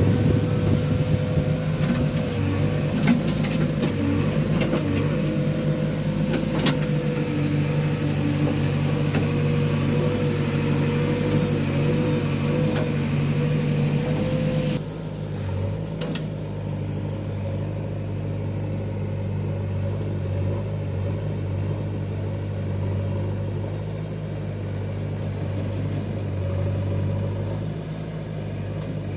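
Diesel engines of a backhoe loader and tractor running, with a steady whine and occasional knocks. About halfway through, the whine stops and the running drops to a quieter, steady hum.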